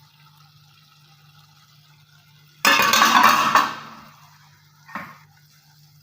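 Pot or pan handled on the stove: a sudden clatter and scrape of cookware lasting about a second, then a short knock about two seconds later, over a steady low hum.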